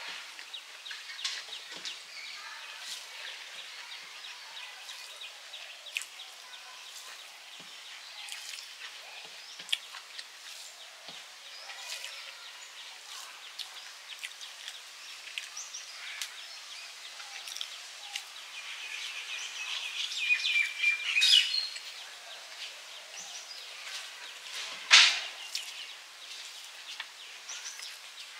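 Birds chirping and calling, with scattered faint clicks; a longer wavering bird call comes about twenty seconds in, and a single sharp knock a few seconds after it.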